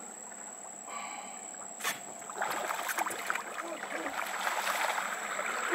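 Faint water sloshing and trickling against the side of a small boat while a hooked snook is held in the water, with one sharp knock about two seconds in.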